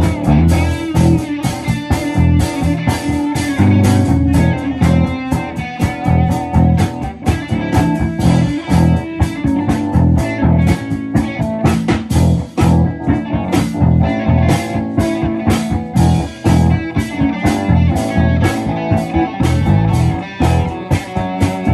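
Live band jam led by guitar, a bluesy rock groove over a steady beat and strong bass.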